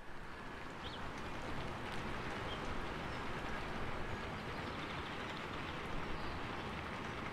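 Steady rain falling, a dense even hiss, with a couple of faint bird chirps about a second in and shortly after.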